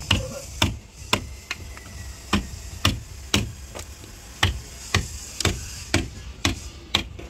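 A wood chisel struck repeatedly with a hammer, about two sharp blows a second, chopping out excess timber from a wooden fishing boat's hull.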